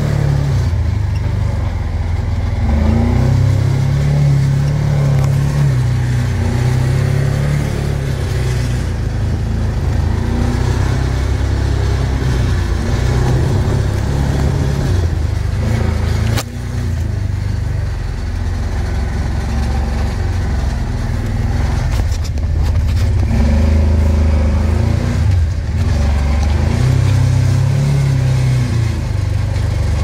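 Kawasaki Teryx side-by-side driving through snow, heard from inside the cab, its engine running with the pitch rising and falling as the throttle changes. One sharp knock about halfway through.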